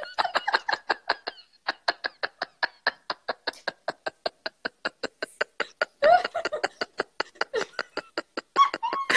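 Women laughing hard: a long run of short, rapid, breathy laugh pulses, about six a second, with louder voiced laughs about six seconds in and near the end.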